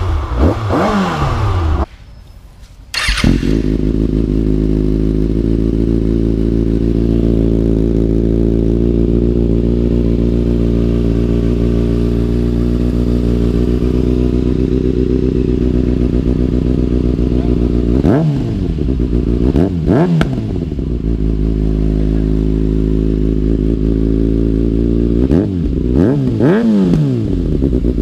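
Kawasaki ZX-6R's inline-four idling steadily through an Austin Racing aftermarket exhaust, with short throttle blips: a few at the start, a couple around two-thirds of the way through, and a quick cluster near the end.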